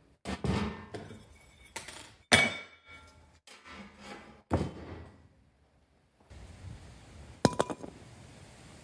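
Irregular sharp metal knocks and clinks, some ringing briefly, as an AC condenser fan motor is taken apart with tools. The loudest knock comes a little over two seconds in.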